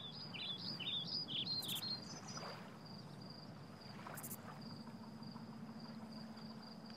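Birds chirping in a quick run of swooping notes for about the first two seconds, over a faint, high, pulsing trill and a low steady hum: outdoor nature ambience.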